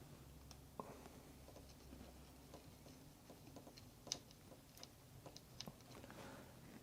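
Faint, scattered small clicks and taps of a small screwdriver and plastic robot parts being handled while a screw is worked back into the motor, with a sharper click just after four seconds in.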